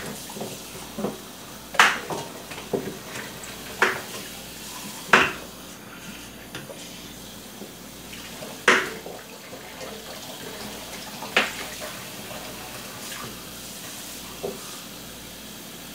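Kitchen clatter: several sharp, irregularly spaced clinks and knocks of utensils against pots and dishes, over a steady low hiss.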